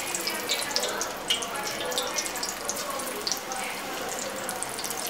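Palak (spinach) bondas, balls of gram-flour batter, deep-frying in hot oil: a steady sizzle full of small crackles and pops as the water in the batter boils off.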